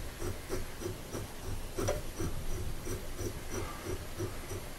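Mini mill's Z axis being cranked by hand through its newly fitted CNC Fusion screw kit, running the head up and down. It makes a steady, even rhythm of soft ticks, one set with each turn, as the screw and bearings rotate.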